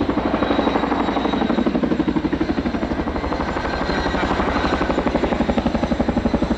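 Boeing Chinook tandem-rotor helicopter flying a display, its rotor blades beating in a rapid, steady pulse.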